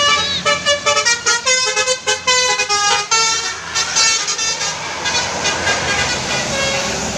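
Tourist bus's basuri telolet musical horn playing a quick melody of short multi-tone toots, thinning to a few scattered notes after about three seconds, over the bus engine running.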